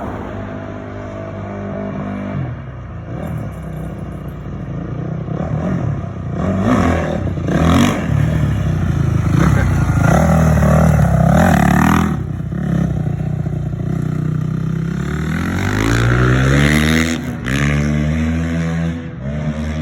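2005 Honda CRF450 dirt bike's single-cylinder four-stroke engine running under throttle, its revs rising and falling repeatedly.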